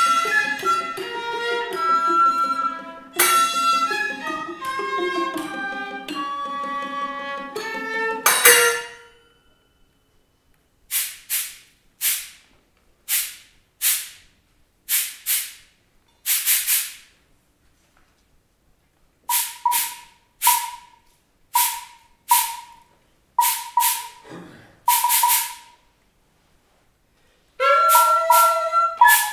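Violin playing with other instruments in a dense passage that breaks off about nine seconds in. Then small hand cymbals are struck again and again, singly and in quick pairs, each strike ringing briefly with long pauses between, and a trumpet comes in near the end.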